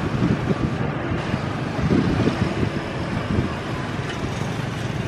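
Wind buffeting the microphone over the low, steady rumble of a distant jet airliner's engines as it lines up for its takeoff run.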